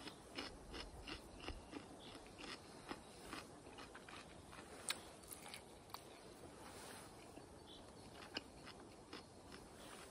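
A person chewing and biting a grilled chicken wing close to the microphone: a quick run of soft wet chewing clicks, then sparser ones with an occasional sharper crunch. It is faint.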